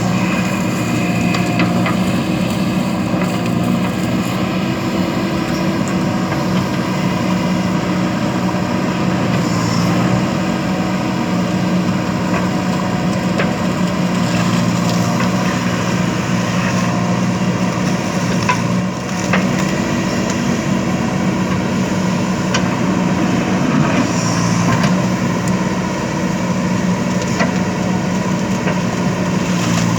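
JCB backhoe loader's diesel engine running steadily under working load, a low even hum, with scattered sharp clicks and knocks from the digging.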